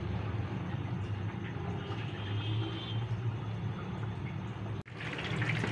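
A steady low mechanical hum. After a sudden break near the end, running tap water starts as jaggery is washed under it.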